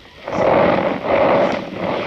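Cornstarch being squeezed and crushed by hand, giving a squeaky crunch, twice.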